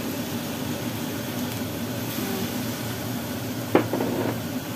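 Pork trotters frying in a metal wok with soy sauce: a steady hiss. About four seconds in, a single sharp clink of the metal ladle against the wok.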